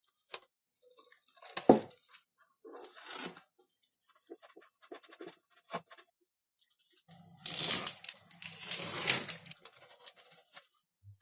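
Hand work on foam model-plane parts: scattered scrapes and light taps, one sharp click a couple of seconds in, then a rough scraping, tearing stretch of about three seconds.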